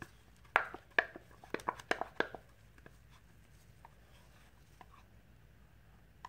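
A silicone spatula scraping and tapping against a plastic cup while cold process soap batter is scraped out: a quick run of sharp clicks and taps in the first couple of seconds, then a few faint ticks.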